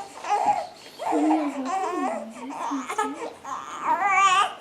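A young infant fussing and crying in short, broken vocal bursts, with a wavering cry near the end.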